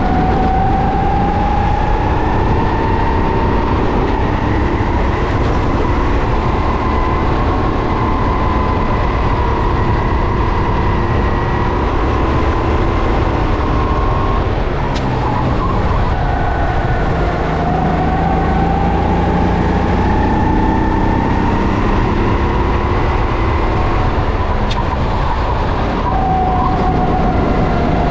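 Kart engine heard onboard at racing speed, its pitch climbing steadily along the straights, dropping sharply about halfway through and briefly near the end as the driver lifts for corners, then climbing again. A steady low rumble runs underneath.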